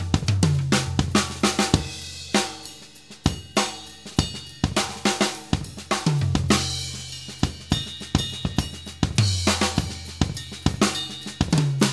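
Four-piece Yamaha drum kit played in a busy groove, with snare, hi-hat and cymbals over kick. Several long-ringing low drum strokes sag in pitch after the hit. The whole kit is picked up by a single AKG microphone placed centrally by the bass drum's batter head.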